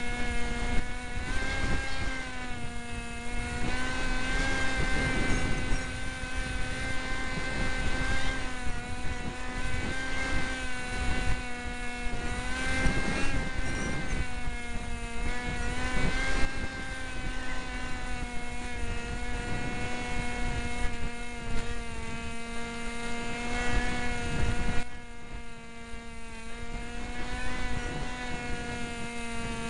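Cox SkyCruiser RC plane's motor and propeller running at near full throttle, heard from the onboard camera: a steady whine of almost constant pitch, with wind buffeting the microphone in gusts. The whine drops in level briefly about three-quarters of the way through.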